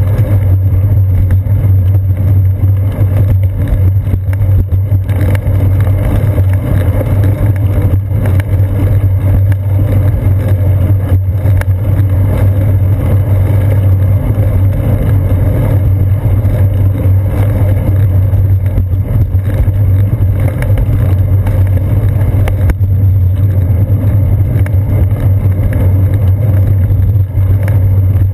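Steady low rumble of wind and rolling road vibration, picked up by a camera mounted on the seat post of a bicycle riding along a concrete path. It holds an even, loud low hum with no pauses.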